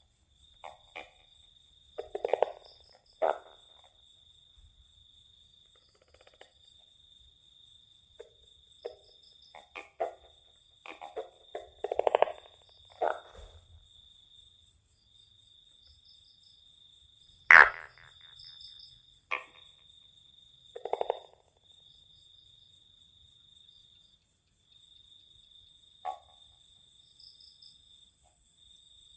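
Four-lined tree frogs (Polypedates leucomystax) giving short, rattling croaks at irregular intervals of a few seconds, over a steady high insect trill. One sharp, louder click comes a little past the middle.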